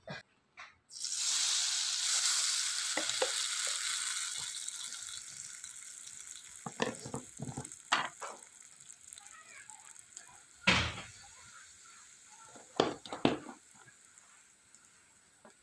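Ground spices dropped into hot oil in a stainless steel pan, sizzling hard from about a second in and slowly dying down. A few sharp knocks against the pan, the loudest about two-thirds of the way through.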